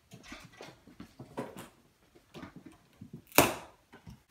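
A plastic packing strap around a large cardboard TV box snapping loose as it is cut, one sharp snap about three seconds in, with light rustling and handling noises before it.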